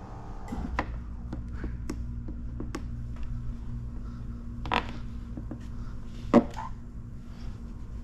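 Scattered light clicks and taps from hands working, over a steady low hum, with a sharper click about six seconds in.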